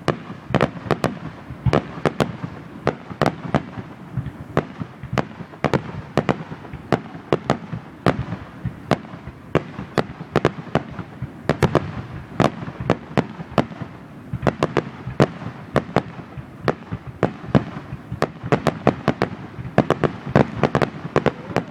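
Fireworks going off: an unbroken run of sharp bangs and pops at irregular spacing, several a second.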